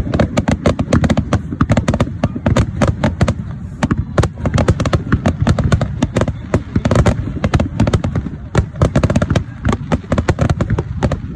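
Aerial fireworks going off in a dense, continuous barrage: rapid cracks and bangs several a second over a deep rumble of booms.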